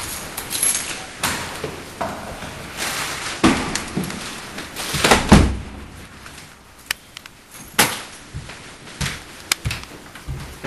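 A wooden door being handled and shut, with scattered knocks, clicks and thuds. The loudest is a heavy thump about five seconds in.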